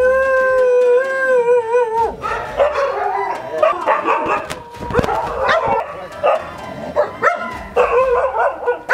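Several kennelled dogs howling and barking: one long howl held for about two seconds that wavers near its end, then many short barks and yelps overlapping one another.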